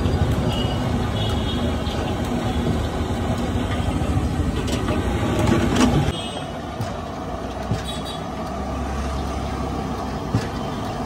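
Steady low rumble of street and cart ambience with a few short knocks. It changes abruptly and turns quieter at a cut about six seconds in.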